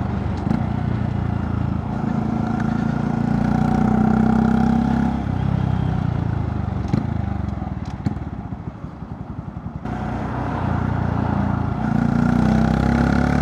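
Honda Monkey 125's single-cylinder engine running through a Scorpion titanium exhaust with the baffle fitted, heard while riding. The engine note climbs, drops back to a low, pulsing run about halfway through, then builds again near the end.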